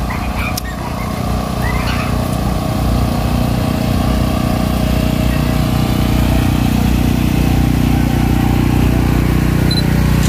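A steady, low engine-like drone that grows a little louder over the first few seconds, with faint voices near the start.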